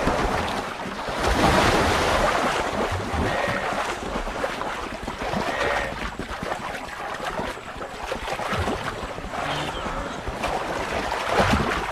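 Water splashing and churning as a crocodile grips a struggling wildebeest in the river.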